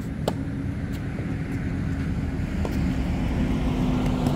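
Tennis rally: a racket strikes the ball sharply just after the start, and a few fainter ball hits and bounces follow. Under them runs a steady low rumble with a held hum, like distant traffic, growing louder toward the end.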